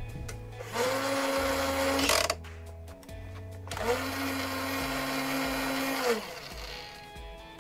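Small battery-powered winch motor in a Dickie Toys rescue helicopter toy whirring in two runs, the first about a second in for a second and a half, the second from about four seconds for two seconds, each spinning up and winding down in pitch. Background music with a steady beat underneath.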